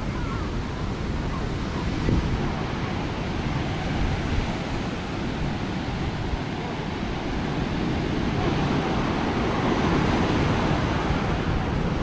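Ocean surf breaking on a beach, a steady rushing wash of waves that swells louder in the last few seconds, with wind buffeting the microphone.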